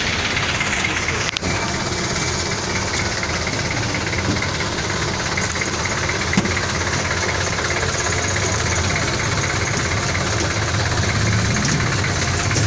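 Street traffic: vehicle engines running close by in a steady, continuous din, the low engine rumble growing louder near the end.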